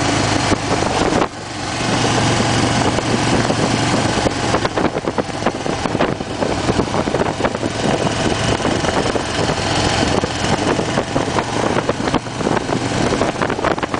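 Harley-Davidson Fat Bob's air-cooled Twin Cam 96 V-twin running at road speed, with wind rushing over the microphone. The sound drops away for a moment just over a second in, then picks back up.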